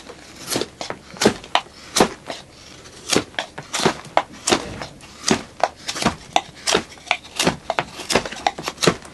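A hatchet chopping into a stick of wood held upright, in quick, fairly even strokes, roughly three a second.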